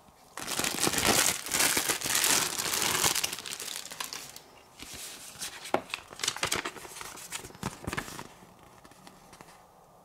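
Packaging being handled, crinkling and rustling: loud dense crinkling for the first few seconds, then softer crinkles and a few sharp clicks that die away about eight seconds in.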